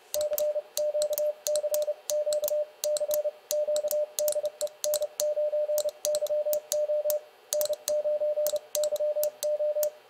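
Morse code sidetone from a ham transceiver: a steady mid-pitched beep keyed in fast dits and dahs at 30 words per minute from a brass paddle. The paddle levers click sharply along with it.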